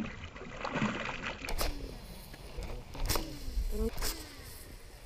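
Water splashing as a released largemouth bass drops back into the lake, followed by several short, sharp splashes or knocks.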